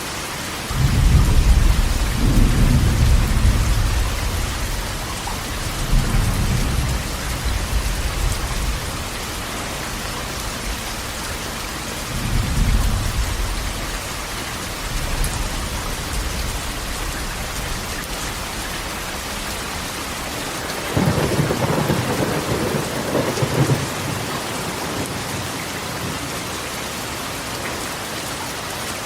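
Steady rain drumming on a corrugated metal roof, with thunder rumbling low four times: the loudest roll about a second in, smaller ones at about six and twelve seconds, and a longer roll a little past twenty seconds.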